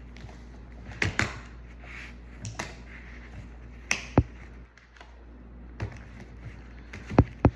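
Sharp clicks and knocks of a laptop screen assembly and its metal hinges being handled and set in place, about eight taps scattered unevenly, with two in quick succession near the end.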